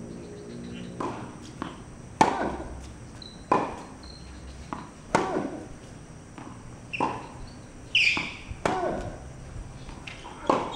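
A tennis ball is struck by rackets and bounces on a hard court during a doubles rally. Sharp hits come about every second or so, some much louder than others.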